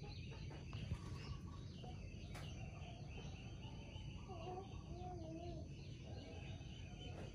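Faint birds chirping in the background over a steady low rumble of outdoor noise, with a short wavering call around the middle.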